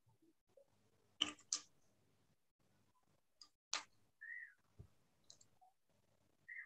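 Near-quiet room tone broken by a few sharp clicks, two close together a little over a second in and a louder one near four seconds, followed by a short high chirp that rises and falls.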